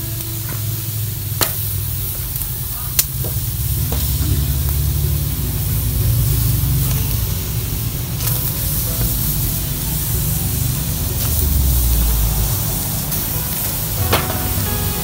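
Small climbing perch sizzling as they cook on a hot metal sheet over a wood fire, with a few sharp ticks.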